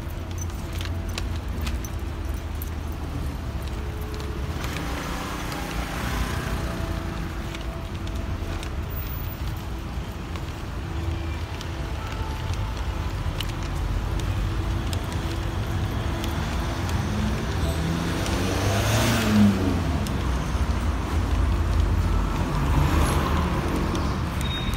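Street traffic: cars passing by over a steady low rumble, one passing loudest about three-quarters of the way through.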